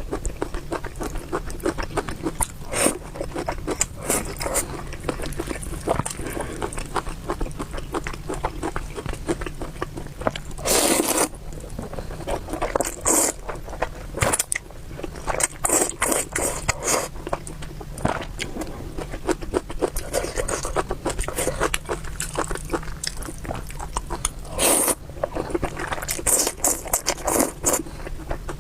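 Close-miked eating sounds: a dense, continuous run of wet chewing and mouth clicks over noodles, with several louder bursts spread through the stretch.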